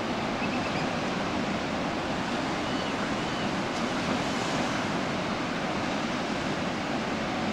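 Ocean surf breaking on sea stacks and a sandy beach, a steady, even wash of waves, with a few faint gull cries above it.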